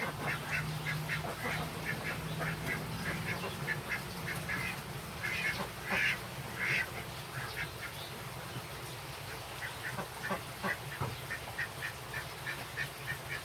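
A rapid series of short, sharp animal calls, about three or four a second and loudest about six seconds in, over a low steady hum.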